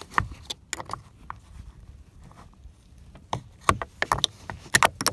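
Small flathead screwdriver working at a plastic screw cover in a truck's door-panel pull cup: a scatter of sharp clicks and light scrapes of metal on hard plastic as the cover is pried, with a cluster of clicks about three seconds in and again near the end.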